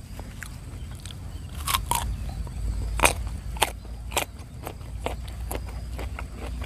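Close chewing of a mouthful of crunchy raw fruit for rujak. Several loud crisp crunches come between about two and four seconds in, followed by softer, irregular chewing clicks.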